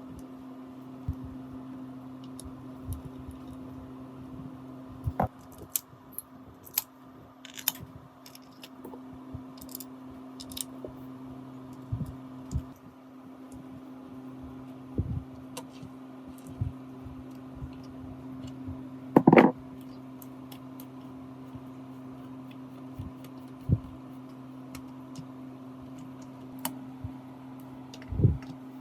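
Scattered light knocks and clicks of metal parts and hand tools being handled on a workbench, over a steady low electrical hum. One louder knock comes about two-thirds of the way through.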